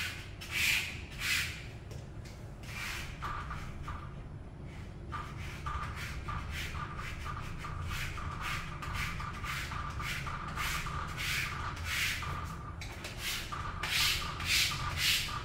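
A plastic squeegee card rubbing across wet window film in repeated short strokes, pushing water and air bubbles out from under the sheet. The strokes come louder and closer together near the end.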